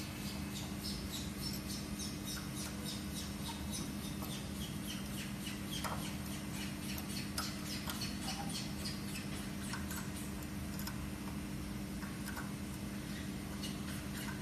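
Hex key turning a steel adjustment screw in a quartz bar holder, making many small irregular metal ticks and faint squeaks as the bar's height is lowered. A steady low hum runs underneath.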